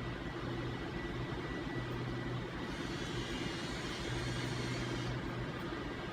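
Steady background hum with a constant low drone and a faint high tone. A brighter hiss joins in about two and a half seconds in and drops away about five seconds in.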